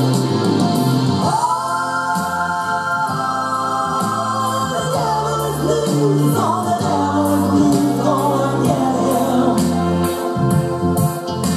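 Pop song with sung vocals, including a long held note, over bass and percussion, played through a home stereo system.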